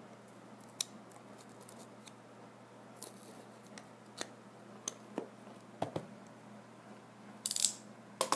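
Snap-off utility knife blade cutting through the paper seal sticker on a cardboard phone box: scattered small clicks and scratches. Near the end come a louder scratchy rasp and a sharp knock as the box is handled.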